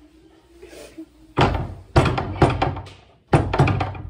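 Two bursts of loud, rapid thumping and clattering: the first comes about a second and a half in, the second near the end, after a quiet start.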